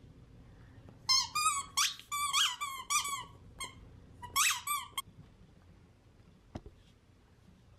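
A Shiba Inu chewing a spiky squeaky toy ball, squeezing out a quick run of short, high squeaks, then a few more about a second later.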